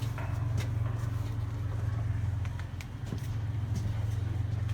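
Steady low machine hum, with a few faint clicks and knocks.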